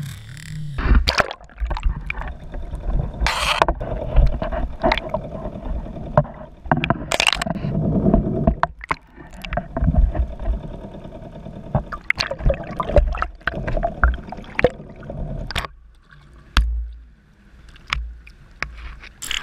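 Water sloshing and gurgling around an underwater camera housing, broken by many irregular knocks and scrapes as the housing bumps against the handline and gear, over a faint steady hum. It goes quieter for the last few seconds apart from a couple of thumps.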